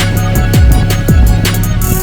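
Electronic music with a beat: deep kick drums that slide down in pitch, fast hi-hat ticks, and held synth notes.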